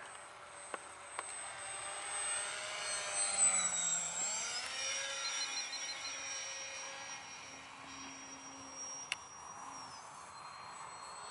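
Electric motor and propeller of a Super Bandit depron foam RC park jet in flight: a whine of several tones that dips in pitch about four seconds in and then climbs back. A few sharp clicks come about a second in and again near the end.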